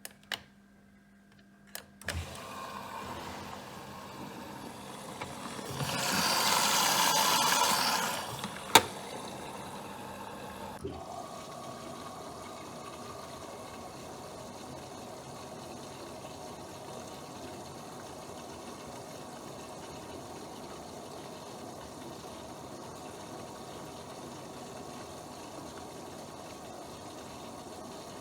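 Bosch WFP3231 washing machine taking in water: a couple of clicks, then a rush of incoming water that swells loudest for about two seconds. A single sharp click, the loudest sound, follows, and the water then settles into a steady hiss of filling.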